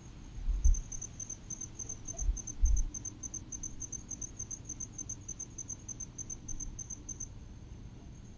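A cricket chirping in an even high-pitched pulse, about four chirps a second, stopping about a second before the end. A couple of low thumps sound in the first three seconds.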